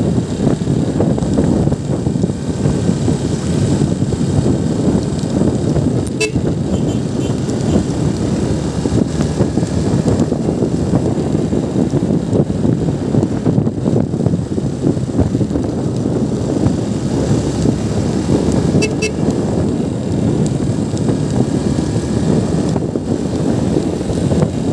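Steady rush of wind and engine noise from a motorcycle being ridden on the road, with two brief horn toots, about 6 seconds in and again about 19 seconds in.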